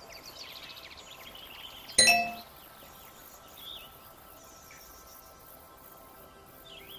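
A single bright metallic ding about two seconds in that rings out for about half a second, over birds chirping.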